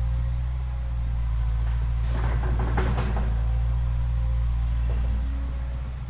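Remote-control toy excavator's small electric motors and plastic gearing running with a steady low hum, with a burst of rattling clicks about two to three seconds in.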